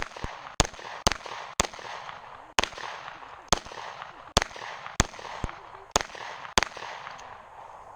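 A 9mm Glock pistol fired repeatedly, about twelve sharp shots at an uneven, moderately quick pace, each with a short echo, stopping a little more than a second before the end.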